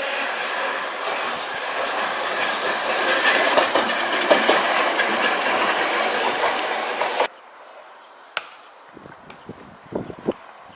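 Hankai Tramway tram passing close by, its wheels clattering over the rails with a loud rushing running noise. The sound cuts off abruptly about seven seconds in, leaving a quiet background with a few faint knocks.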